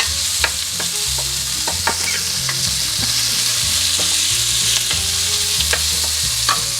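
Onions and red bell peppers sizzling steadily as they sauté in olive oil in a frying pan, with a utensil clicking and scraping against the pan now and then as they are stirred.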